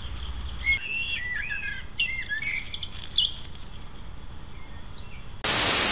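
Small songbirds singing, a run of varied chirps and warbled phrases. About five seconds in, a loud burst of hiss cuts in suddenly.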